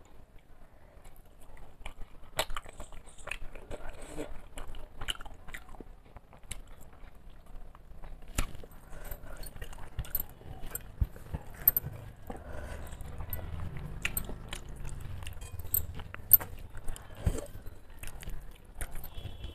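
Close-miked chewing of a mouthful of rice and fish curry, with irregular wet clicks and smacks from the mouth.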